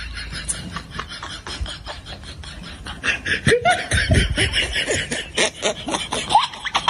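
People snickering and laughing in short, repeated bursts, growing louder from about three seconds in.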